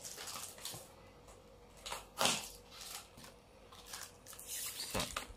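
Plastic-packed Mechanic stencil cards handled and shifted against each other: brief plastic rustles, the loudest about two seconds in and another near the end.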